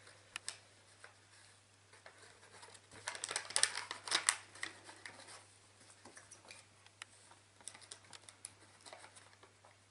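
Paper rustling and small clicks as metal paper clips are slid onto the edge of a paper craft fish to hold a paper ring in place. The handling grows louder for a moment about three to four seconds in.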